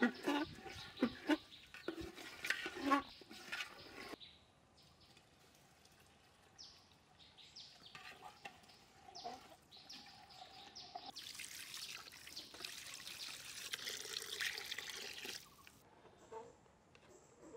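A metal ladle stirring and scraping a thick lentil-and-meat haleem in a large aluminium pot, in quick clattering strokes. Partway through, water is poured from a mug into the pot, a few seconds of steady pouring and splashing.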